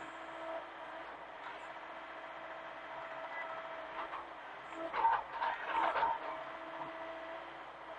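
Hitachi mini excavator running steadily with a constant whine. About five seconds in there is a second or so of knocking and clattering.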